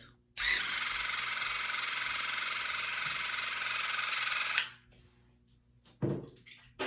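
Waterpik cordless water flosser running with its tip in the mouth: a steady pulsing buzz with water spray for about four seconds that cuts off suddenly. Two short, louder sounds follow near the end.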